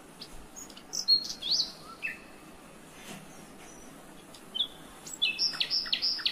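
Small birds chirping: a few short, high chirps and sweeping calls about a second in, then a quick run of repeated chirps near the end.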